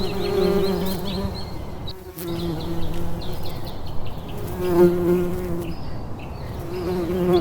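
Honeybees buzzing: a steady low hum that swells and fades about four times as bees pass close to the microphone.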